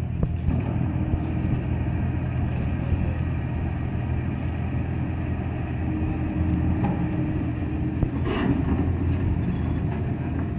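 Car ferry's engine running steadily at the landing, a low even hum. A brief louder noise cuts in about eight seconds in.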